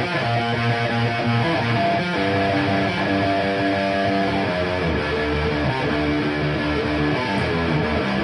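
Electric guitar played through a Framus Cobra 100 W amp head into a Marshall MF400A 4x12 cab with Celestion G12K-100 speakers, playing a run of held chords that change every second or so.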